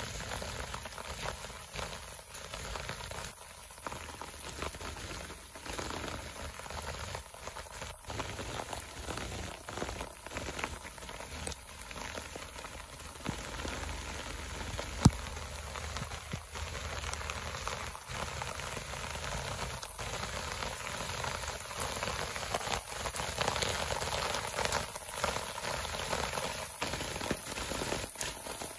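Winter rain falling steadily on brick paving and garden foliage, a fine continuous patter of drops, growing a little louder in the last few seconds. A single sharp tap sounds about halfway through.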